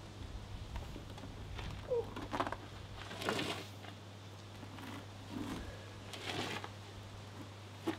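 A man stirring on the ground and pushing himself up, making a few short scuffs, rustles and strained breaths over a steady low hum.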